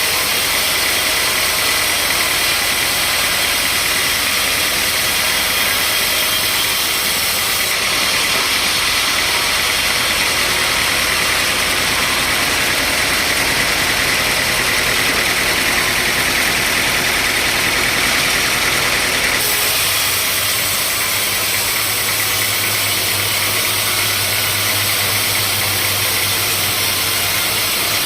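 Sawmill machinery running steadily, a dense continuous mechanical noise with a faint steady whine; its character shifts abruptly about eight seconds in and again about twenty seconds in.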